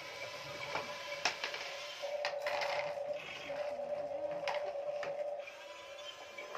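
Small electric motor of a toy RC excavator whining steadily, cutting in and out, with a few sharp clicks of plastic toy trucks knocking on a wooden floor.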